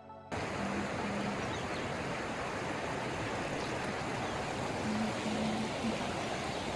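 Flowing stream or river water, a steady even rush that cuts in suddenly just after the start.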